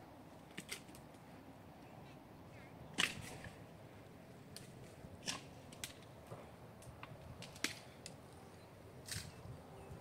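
Faint, irregular sharp knocks and clicks, about ten in all, the loudest about three seconds in.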